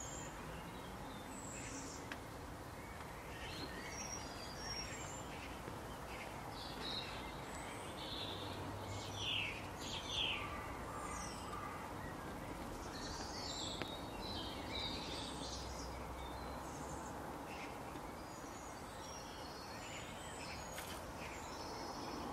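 Birds chirping and calling against a steady outdoor background hiss. The calls are short and scattered, and a couple of louder ones come near the middle.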